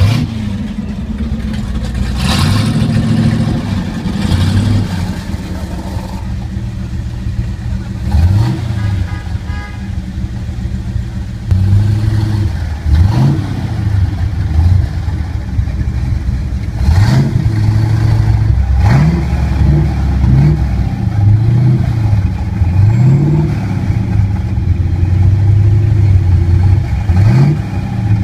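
1971 Chevrolet C10's 454 big-block V8 idling and being revved in short throttle blips, a few at first and then in quick succession through the second half.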